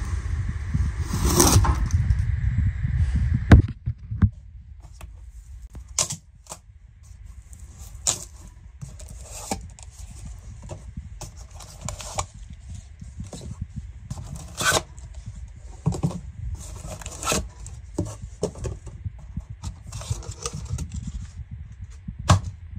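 Cardboard packaging of a boxed cabinet being cut open and pulled apart: scattered scrapes, rustles, tearing and sharp knocks. A low rumble runs under the first few seconds, then stops.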